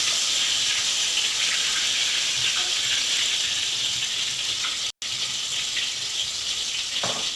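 Tempe frying in hot oil in a pan: a steady, high sizzle, which cuts out for an instant about five seconds in.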